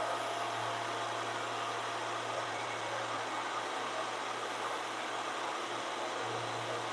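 VEVOR 13-inch benchtop thickness planer running steadily with no board feeding through, a constant motor and cutterhead hum between passes.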